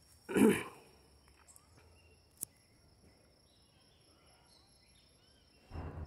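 Insects buzzing steadily at a high pitch, with a loud short rustle or knock about half a second in, a sharp click around two and a half seconds, and a smaller rustle near the end.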